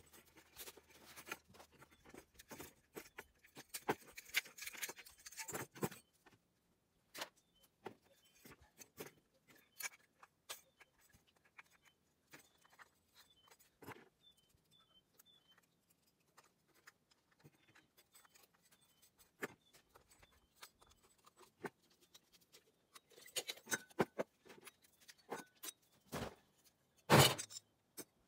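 Hand tools and metal lamp parts clinking and knocking on a plywood worktable as a table lamp is taken apart for scrap: scattered sharp clicks, a busier patch a few seconds in, and two louder knocks near the end.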